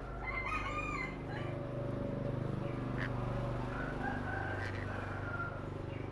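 Small pet parrots calling: a few short bending squawks in the first second, a sharp chirp about halfway, then a longer whistled note, over a steady low hum.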